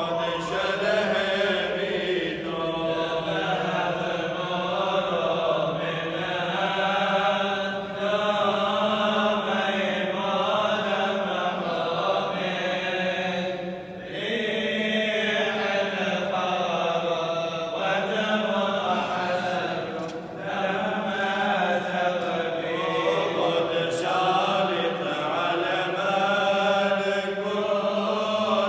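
Men's voices chanting an Orthodox funeral hymn, a slow, continuous melody of drawn-out notes with brief pauses for breath.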